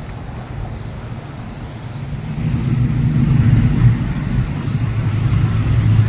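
Semi truck's diesel engine running as the truck works its way through a tight street, growing louder about two seconds in.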